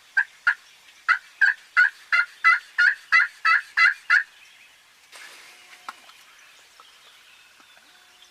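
Turkey yelping: a steady series of about a dozen evenly spaced yelps, about three a second, lasting about four seconds, then stopping.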